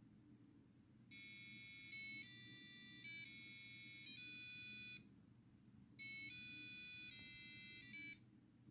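Arduino-driven piezo buzzer playing a simple reprogrammed tune in high-pitched electronic beeps, stepping from note to note. It plays one phrase of about six notes, stops for about a second, then plays a shorter phrase of about four notes.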